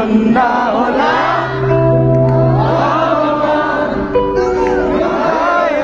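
Live band music through a large outdoor concert PA: a song sung by many voices together, with a long held bass note through the middle.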